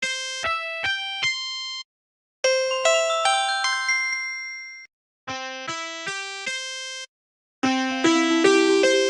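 LG VX5600 Accolade cell phone ringtones playing: four short, bell-like melodies of a few notes each, separated by brief silences, the notes ringing out and fading.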